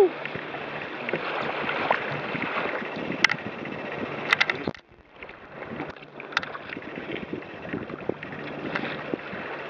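Water rushing and slapping against the wooden hull of a sailing kayak moving fast through choppy waves, with wind buffeting the microphone. A few sharp splashes come a little past the middle, and there is a brief lull about halfway.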